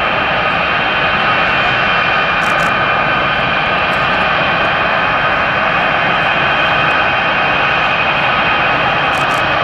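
Boeing C-17 Globemaster III's four Pratt & Whitney F117 turbofan engines running as the aircraft taxis: a steady jet whine of several high tones over a broad rush.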